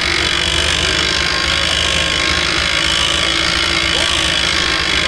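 Electric trailer winch running steadily under load, its motor and gearing reeling in the cable as it pulls a car up onto the trailer.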